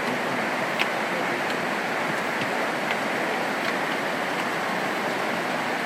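Mountain valley stream rushing steadily over rocks, with a few light clicks, the clearest about a second in.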